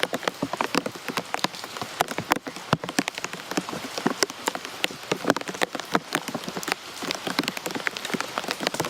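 Rain falling steadily, with many separate drops ticking and splashing close by on a hard surface.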